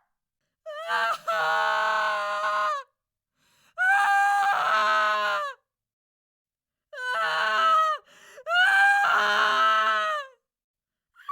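A woman crying out in long, high-pitched wails, four of them, each about two seconds with the pitch falling away at its end, with silent pauses between.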